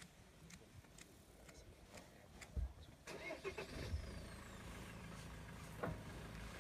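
Safari vehicle's engine starting a few seconds in, then idling with a steady low hum.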